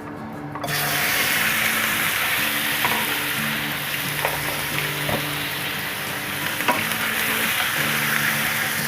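Chicken pieces frying in hot oil in a wok: a sizzle that starts suddenly under a second in as the chicken goes into the oil and holds steady, with a few light clinks of the utensil against the pan.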